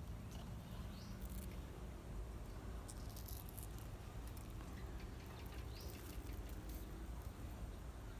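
Light rustling and crackling of cucumber vines and leaves being handled, with scattered small clicks over a low steady rumble.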